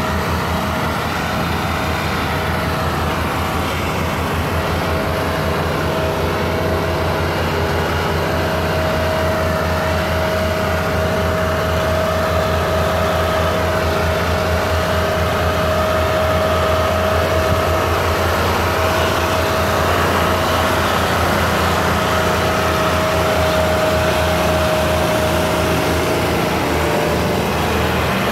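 Tractor diesel engine running steadily under heavy load, towing a fully loaded sugarcane trolley, with a steady whine above the engine note.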